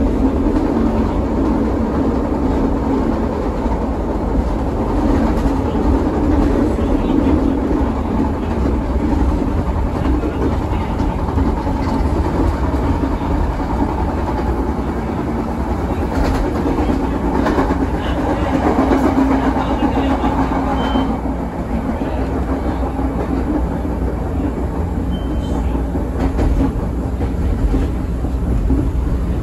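Inside a CTA 2600-series rapid transit car in motion: steady rumble of wheels on rail and traction motors. Loudness eases from about two-thirds in as the train slows into a station, with a few short high squeaks near the end.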